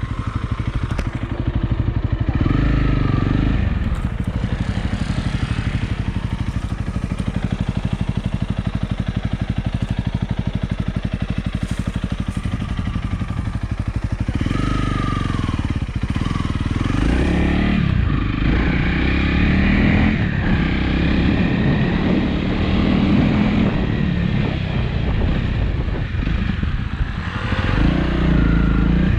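Motorcycle engine running steadily at low revs, then rising and falling in revs from about halfway through as the bike is ridden.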